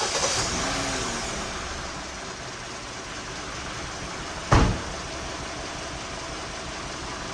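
2017 Hyundai Sonata's four-cylinder engine idling with a misfire on cylinder 4 caused by a failed ignition coil, its level settling down over the first couple of seconds. A single sharp knock comes about four and a half seconds in.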